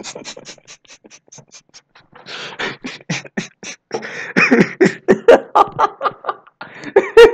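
A man laughing behind his hands: fast, breathy, muffled bursts at first, breaking into louder voiced laughter about halfway through.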